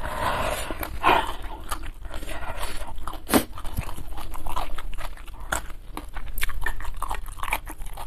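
Close-miked eating sounds from a spicy meal: sniffling and wiping the nose into a tissue in the first second or so, then chewing with wet mouth clicks, and one sharp click about three and a half seconds in.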